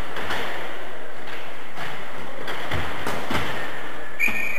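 Cycle-ball play: a series of knocks as the ball is struck by bicycle wheels and bounces on the court. Near the end a referee's whistle blows one shrill, steady note.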